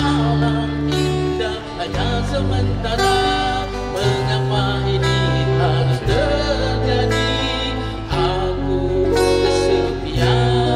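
Live 1990s-style Malay rock ballad sung by a male vocalist into a microphone, over guitar and a bass line that moves every second or two.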